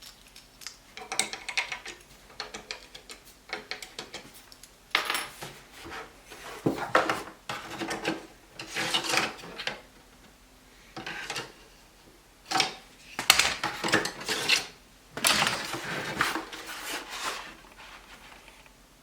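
Hard drives and their plastic drive trays for a Synology NAS being handled and fitted: repeated clicks, clatter and rubbing in several spells, with short quiet gaps between.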